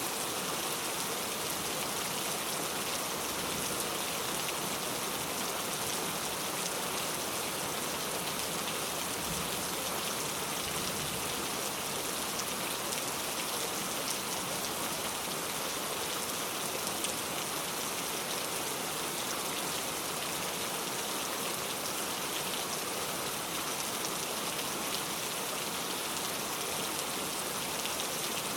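Heavy rain falling steadily on a road, a dense, even hiss of drops with no thunder.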